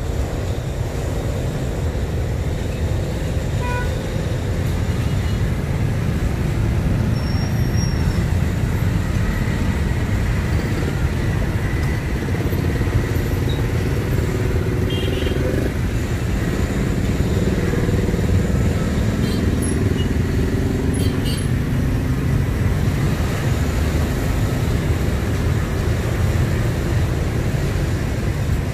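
Steady rumble of street traffic, with motor vehicles passing.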